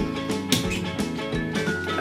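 Background music with plucked guitar-like notes and a light steady beat.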